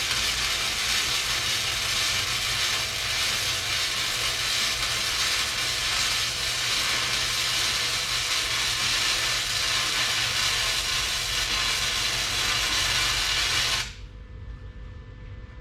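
Wire-feed welder laying a long continuous weld bead, a steady crackling hiss that stops abruptly about 14 seconds in.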